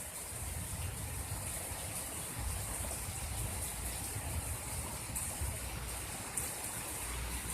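Heavy rain falling steadily in a downpour: a dense, even hiss with a low rumble underneath.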